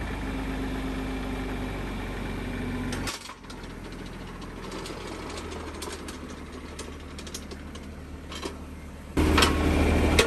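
John Deere tractor engine idling with a steady low-pitched run. It drops to a quieter level about three seconds in and comes back louder about nine seconds in.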